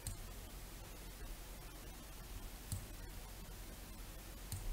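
Three faint computer mouse clicks a couple of seconds apart, over a steady low hum.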